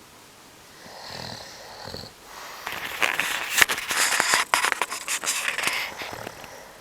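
A sleeper snoring: a softer breath about a second in, then a louder, crackly snore lasting from about two seconds in until near the end.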